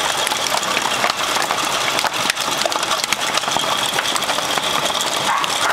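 Heavy hail falling: a dense, steady clatter of many hailstones striking the ground and nearby surfaces.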